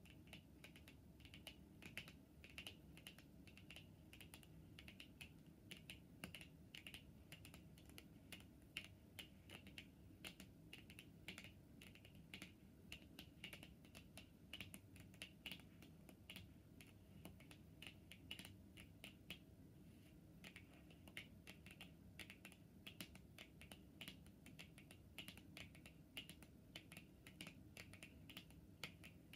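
Long natural fingernails tapping on tarot cards: quiet, quick clicks, several a second, in an uneven rhythm.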